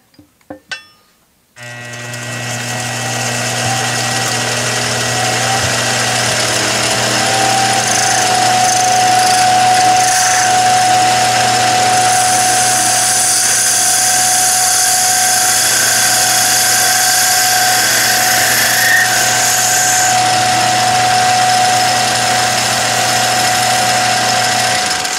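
Billiard-cue lathe starting about a second and a half in after a few light clicks, then running loud and steady with a low motor hum and a constant whine. Its cutter shaves the leather cue tip down flush with the ferrule. It shuts off just before the end.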